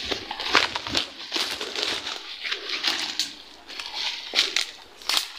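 Someone moving fast through dense undergrowth: leaves and stems swishing against the body and footsteps on dry leaf litter, in irregular bursts about once or twice a second.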